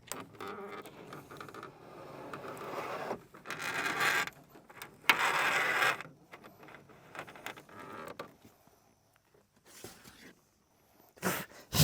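Rustling and scraping noises in a series of bursts, the loudest about three and five seconds in, then a few short sharp sounds near the end.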